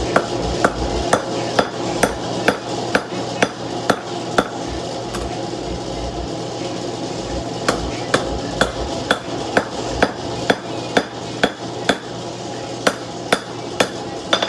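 Hand hammer forging a hot steel knife blade on a post anvil: sharp blows about two a second, in three runs with short pauses between, over a steady roar.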